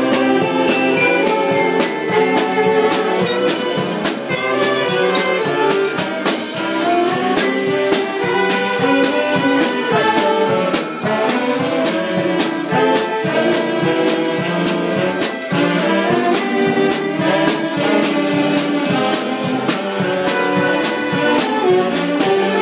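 A band playing a tune: saxophones and accordions carry the melody over a steady snare-drum beat with cymbal, and there is a bright bell-like jingle in the mix.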